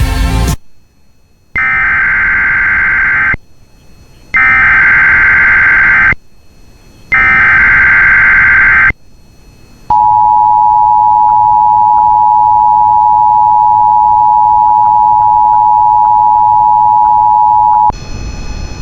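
Emergency Alert System header: three short bursts of digital data tones a second apart, then the two-tone attention signal held steady for about eight seconds, announcing a new alert.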